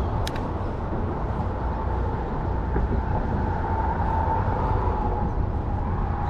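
Wind buffeting the microphone, a steady low rumble, with a faint wavering whine running through it.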